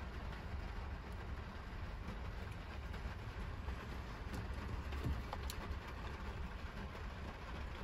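Steady low rumble inside a small car's cabin, with a couple of faint clicks about five seconds in as a paper coffee cup is set into the vent-mounted cup holder.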